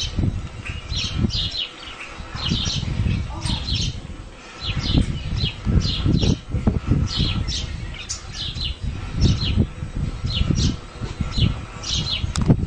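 Small birds chirping in quick, repeated high notes throughout, over an uneven low rumble.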